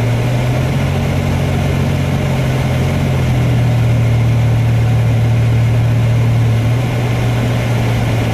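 Car engine and tyre noise heard from inside the cabin while driving at highway speed on a wet road: a steady low hum under an even rushing noise.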